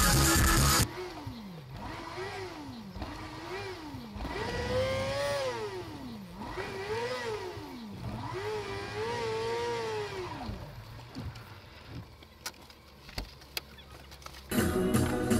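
A car engine revved up and down over and over, about seven times, its pitch rising and falling over a second or so each time. After that come a few faint clicks.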